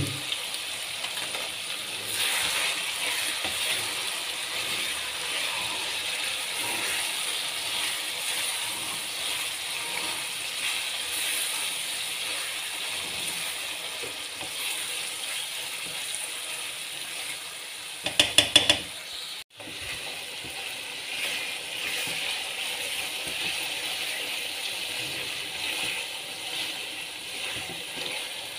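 Chicken and masala frying in a metal kadai with a steady sizzle, while a spatula stirs and scrapes against the pan. About eighteen seconds in comes a quick run of loud knocks, after which the sizzling and scraping carry on.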